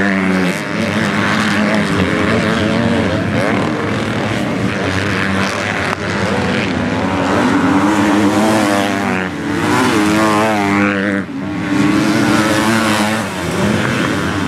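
Motocross bike engines racing, revving up and falling back over and over as the riders work the throttle through the track, with a run of quick rising revs about ten seconds in.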